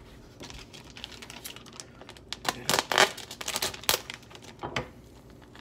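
Plastic packaging around a thawed fish fillet crinkling and crackling as it is handled, with a cluster of sharp crackles in the middle.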